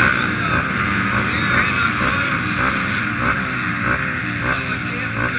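Several racing ATV engines idling and being blipped on the starting line, many engine notes overlapping and rising and falling.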